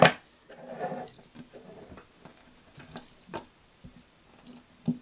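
A sharp click, then scattered light clicks and knocks as two folding pocket knives are handled and laid side by side, with a brief muffled voice-like sound within the first second.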